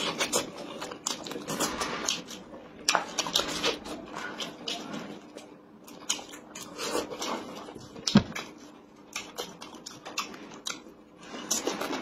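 Close-up eating sounds of biting and chewing a fried chicken drumstick: irregular wet smacks and clicks from the mouth, with one sharp knock about eight seconds in.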